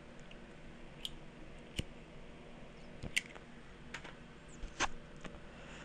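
A few scattered clicks and light taps, about five over several seconds, as a hand handles things on a desk by the keyboard.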